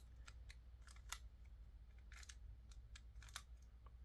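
Faint, irregular clicks and snaps of a 3x3 Rubik's cube's layers being turned by hand, a move every half second or so, over a low steady hum.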